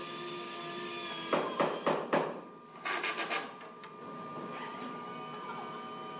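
Woodshop work noise: a steady machine hum under a cluster of knocks and clatter from about one to two seconds in, then a short burst of noise around three seconds.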